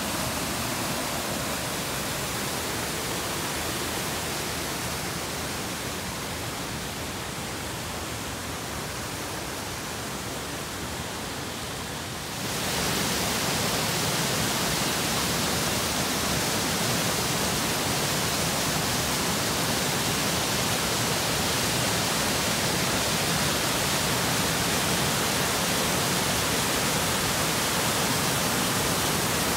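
Waterfall on a mountain creek: a steady rush of water cascading over rocks. About twelve seconds in it jumps louder and hissier, then holds steady.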